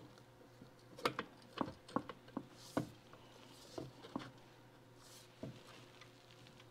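A series of light, irregular metal clicks and taps, about ten in the first six seconds, as a cotter pin and small parts are worked by hand into the governor fork pivot inside a John Deere D governor housing.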